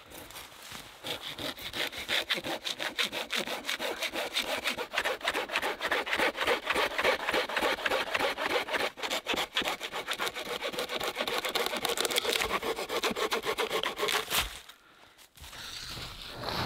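Hand saw cutting through a fallen log with quick, even back-and-forth strokes; the sawing stops shortly before the end.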